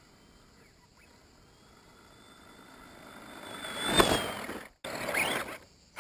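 Electric motor of a 1/10-scale Axial SCX10 RC crawler whining with a thin high tone, and its tyres crunching over loose dirt and stones as it drives up to and past the camera. The sound grows louder to a peak with a sharp knock about four seconds in, then cuts out abruptly twice near the end.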